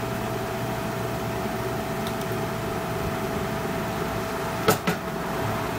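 Steady background hum with a constant tone, and near the end two sharp clicks in quick succession as a smartphone's small circuit board and its connector are pressed and snapped into the plastic frame.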